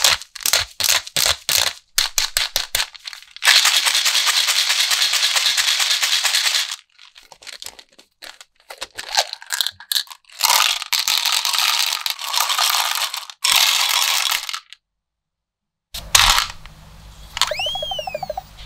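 Small hard coated candies and jelly beans clattering out of plastic containers into small plastic toy bathtubs: quick clicks at first, then a steady rattling pour lasting about three seconds, then more bursts of pouring. Near the end, after a brief silence, a cartoon whistle sound effect rises and falls.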